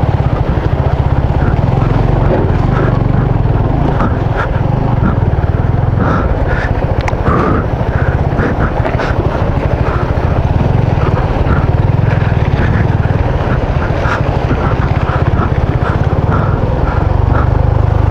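Motorcycle engine running steadily under way on a rough dirt road, with a loud low rumble and many short clicks and rattles over it.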